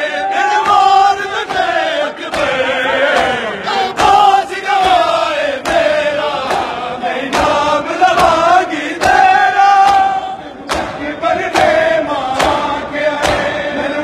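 A large crowd of men chanting a Punjabi noha (mourning lament) together, with rhythmic chest-beating slaps (matam) that settle into an even beat of about two a second in the second half.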